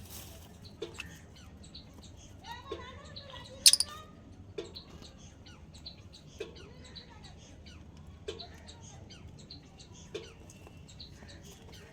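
Pet lovebirds chirping in short, quick high calls, with a sharp click about four seconds in and a soft knock repeating about every two seconds.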